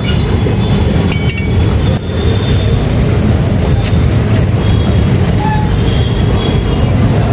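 Steady low rumble of a running vehicle engine or heavy road traffic, with a few faint clicks.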